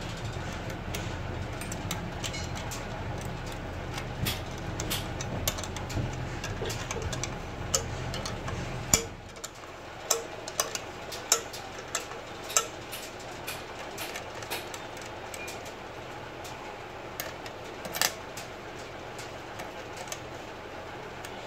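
Sharp metal clicks and clinks of an open-end spanner on nuts and spring-loaded bolts as the nuts are tightened, loudest in a run of clicks about ten to thirteen seconds in and once more near eighteen seconds. A steady low rumble underneath drops away about nine seconds in.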